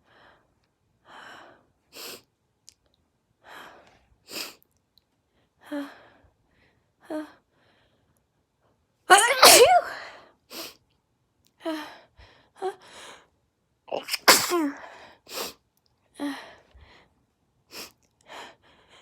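A person's breathy sneeze build-up: short, shaky breaths about every second and a half, breaking into a loud sneeze about nine seconds in and another about fourteen seconds in, with quick catching breaths between and after.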